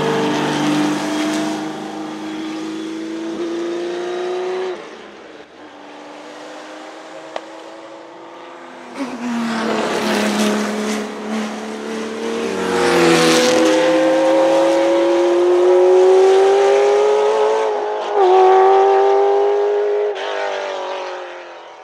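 Porsche 917K's air-cooled flat-12 racing engine at full throttle. It pulls past and drops away about five seconds in, then comes back louder from about nine seconds, its pitch climbing through two upshifts before fading out near the end.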